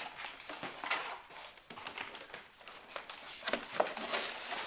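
Packaging of a scooter box being handled during unboxing: irregular crinkling, rustling and small knocks, louder near the end.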